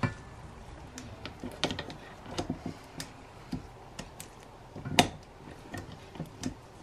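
Scattered light clicks and taps of a stand mixer's wire whisk and stainless steel bowl being handled, with one sharper knock about five seconds in.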